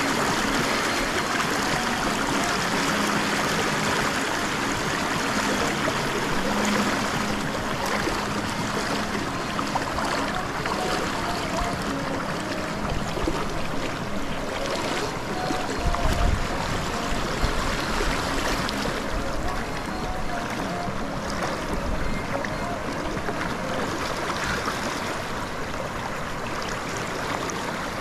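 Shallow, fast river water rushing over stones, a steady dense hiss of flowing water, with a brief low thump about halfway through.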